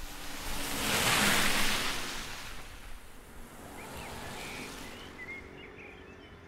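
A car passing on the street: a rush of road noise that swells to a peak about a second in and fades away. Faint bird chirps follow near the end.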